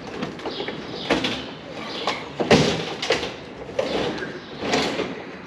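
A few clunks and scrapes from a semi truck's tilt-forward fiberglass hood being handled, its hinge supports broken. The loudest knock comes about two and a half seconds in.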